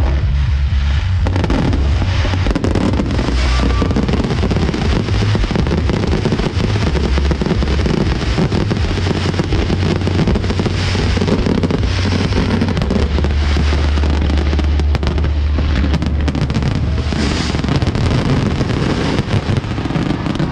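Aerial fireworks display with many shells bursting and crackling in quick, overlapping succession.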